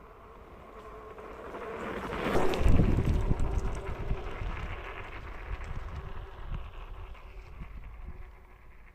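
High-power electric bike with a QS 205 hub motor running under power: a motor whine with wind and tyre noise swells to a loud peak about two and a half seconds in, then fades away slowly.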